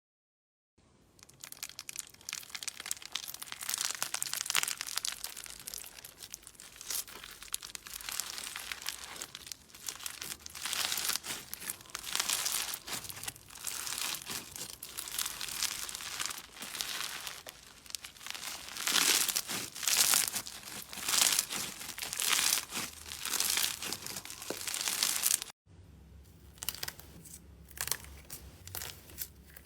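Slime being squeezed and worked by hand, giving crinkly, crackling sounds that swell and fade irregularly. About 25 seconds in, the sound cuts to a quieter clip of crackling with a low hum beneath it.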